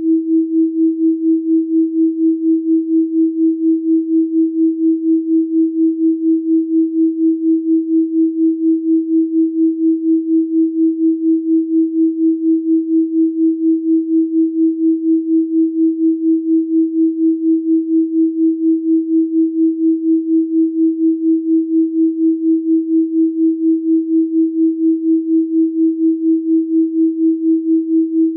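A steady pure sine tone at 324 Hz, electronically generated, pulsing evenly in loudness about three times a second.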